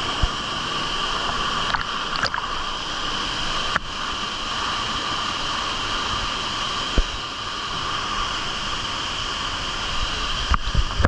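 Waterfall pouring steadily into a pool: a constant, even rush of falling water, with one brief knock about seven seconds in.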